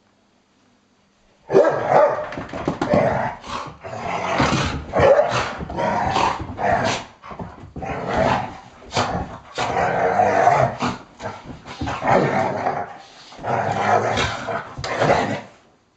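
Two dogs playfighting, growling and barking in a dense, unbroken run of short rough sounds that starts about a second and a half in and stops just before the end.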